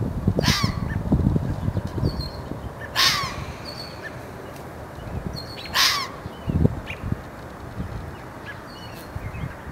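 Red fox barking three times, a couple of seconds apart, each bark a short high call that falls sharply in pitch. Low rumbling noise runs underneath.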